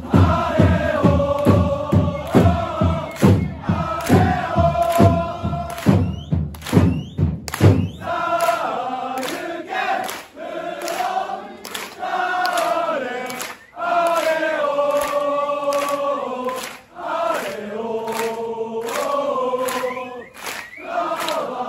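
A large crowd of football supporters singing a chant in unison, with a steady low beat of about three a second for the first eight seconds or so. After the beat stops the singing carries on with hand claps.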